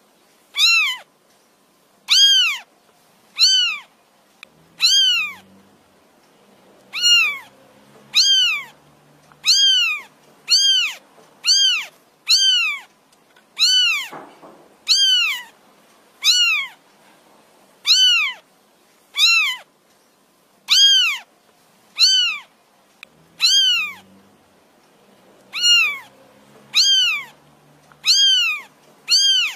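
A kitten mewing over and over, calling for its mother: high-pitched cries, each rising then falling in pitch, repeated at an even pace of about one every second and a quarter, with two short pauses.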